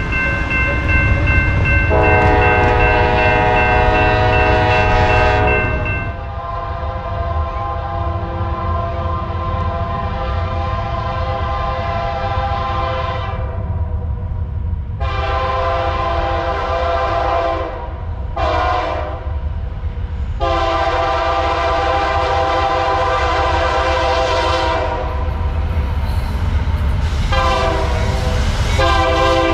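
Diesel freight locomotive's air horn sounding at a grade crossing: several long blasts, a short one in the middle and two short blasts near the end, over the steady low rumble of the approaching locomotives.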